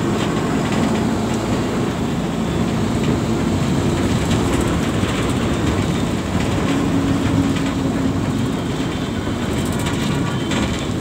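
Steady running noise of a moving bus heard from inside through an open window: engine hum, road rumble and rattling of the body.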